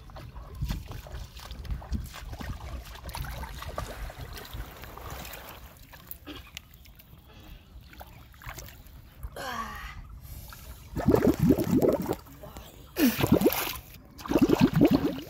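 Shallow river water sloshing and splashing close by as someone wades and works in it, with three louder bursts of splashing in the last few seconds.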